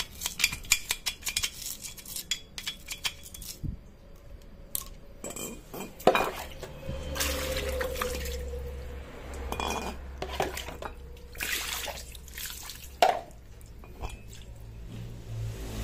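Steel wire brush scrubbing carbon deposits off a Yamaha Mio J cylinder head, a quick run of scratchy strokes for the first few seconds. Then water poured over the head to rinse it, splashing, with a few knocks as the metal part is handled.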